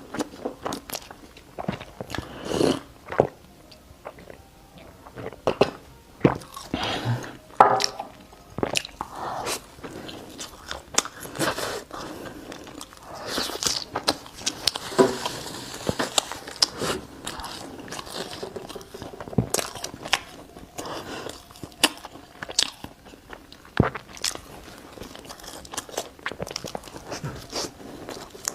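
Close-up eating sounds: a person biting and chewing crunchy food, with many irregular sharp crackles and mouth noises, and a denser crunchy stretch about halfway through.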